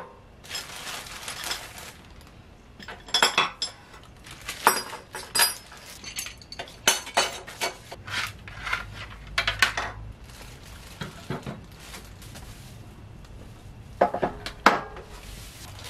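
Loose metal machine parts and hardware clinking and clattering as they are handled and set down on a tabletop, in irregular bursts. Plastic packaging rustles near the end.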